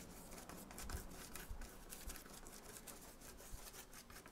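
Faint, scratchy rubbing of a paintbrush's bristles working thick acrylic paint over a stencil on canvas, in many short, irregular strokes.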